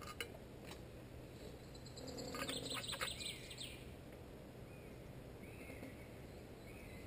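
Quiet woodland with a few faint, short bird chirps. About two seconds in, a brief rustling clatter of light clicks lasts about a second and a half.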